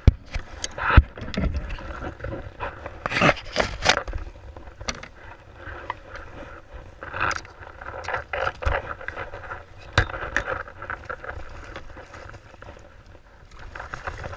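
Irregular knocks and scrapes against a kayak, with louder noisy bursts about three to four seconds in and again around seven to nine seconds.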